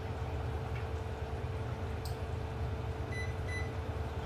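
Steady electrical hum of a running glass-top electric cooktop, with a faint click about two seconds in and two short electronic beeps from a kitchen appliance about three seconds in.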